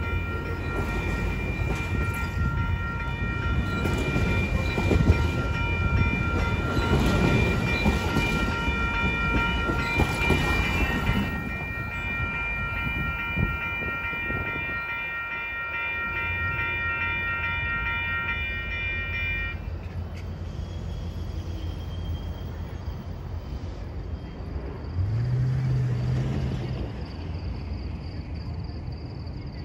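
Bilevel passenger cars rolling past at close range, with loud wheel-on-rail rumble and clatter, while a grade-crossing bell rings steadily. The train noise drops away about 11 seconds in, and the bell rings on alone until it stops at about 20 seconds. A short low hum follows about 25 seconds in.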